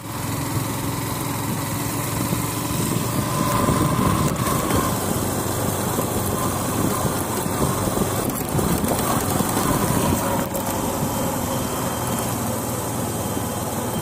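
Yamaha motorcycle engine running at low speed as the bike rides along, with a steady rush of road and wind noise.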